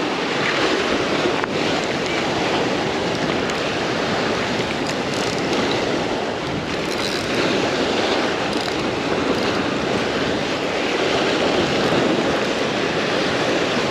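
Ocean surf breaking and washing over jetty rocks, a steady rush of water, with wind buffeting the microphone.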